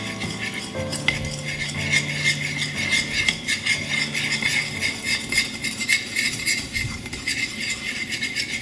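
Metal spoon stirring a wet spice paste in a ceramic bowl, with rapid, continuous scraping and clinking against the bowl.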